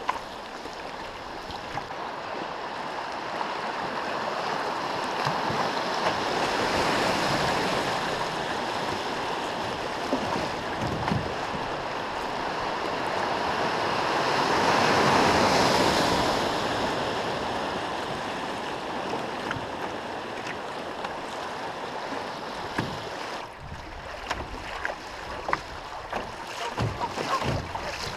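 Rushing water of a shallow river rapid heard from a canoe running through it, swelling to its loudest about halfway through and then easing off. A few light knocks come near the end.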